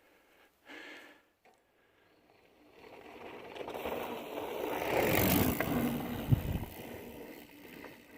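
Mountain bike rolling down a dirt trail: tire and wind noise swells to a peak about five seconds in, with a few knocks over the ground, then fades away.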